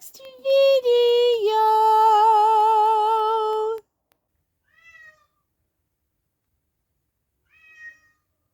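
A long, drawn-out meow with a wavering pitch lasting about three and a half seconds, then two faint short mews, about a second and about four seconds after it stops.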